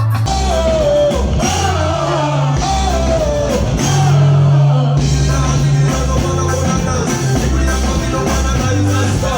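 Live band music with a singer through a PA system: a wavering, held vocal line slides downward over the first few seconds above a steady bass line, then the band plays on.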